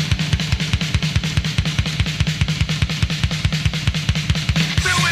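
Fast, heavy rock music led by a drum kit: a rapid, even bass-drum beat of about seven strokes a second under cymbals, with no singing.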